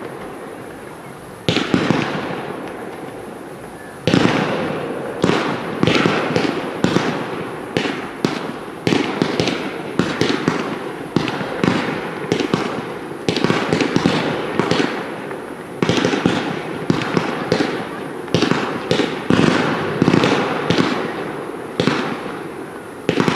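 Fireworks cakes (multi-shot batteries) firing: a single bang about a second and a half in, another about four seconds in, then a fast run of bangs, several a second, each followed by a fading tail.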